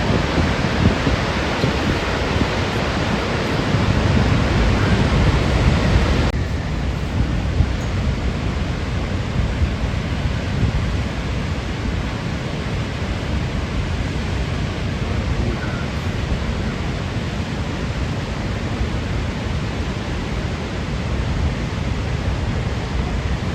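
Niagara Falls' water rushing in a steady, loud wash of noise, which turns suddenly duller about six seconds in.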